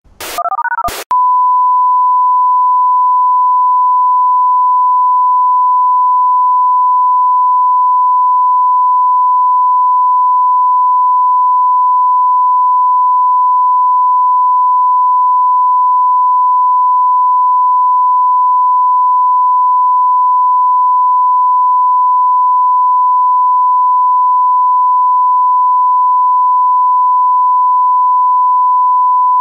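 About a second of dialing, short clicks and brief tones, followed by one long steady beep held at a single unchanging pitch.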